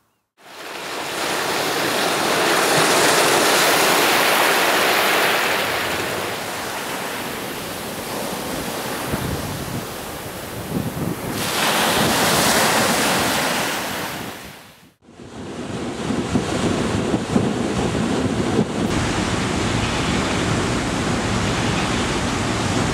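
Surf breaking on a sandy beach, waves washing in and out in two big surges. About fifteen seconds in it cuts to steady wind noise with a low engine drone on a ship's deck at sea.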